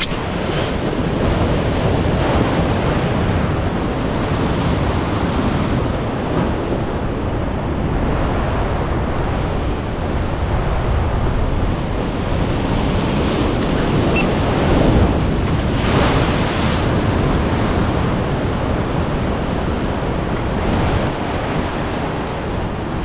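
Heavy ocean surf breaking and washing over rocks, a continuous rush of white water that swells louder as the bigger waves surge in, most strongly about two thirds of the way through. Wind buffets the microphone.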